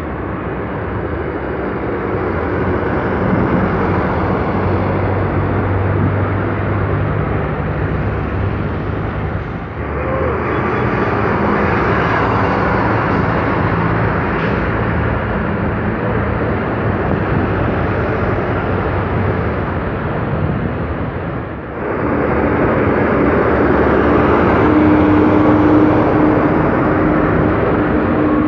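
City buses and street traffic going by: a bus engine runs and draws past close, over the continuous noise of cars and tyres. The sound breaks off and picks up again twice, about ten and twenty-two seconds in.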